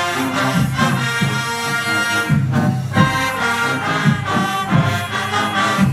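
Marching band brass playing a lively tune over a steady low beat.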